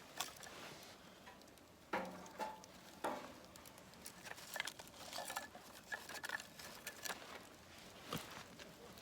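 Metal camp cookware being handled: a few knocks and clinks, several of which ring briefly, over small scattered clicks.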